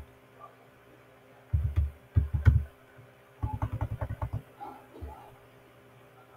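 Typing on a computer keyboard: a few separate keystrokes with a dull thump, then a quick run of about ten keys a little past the middle.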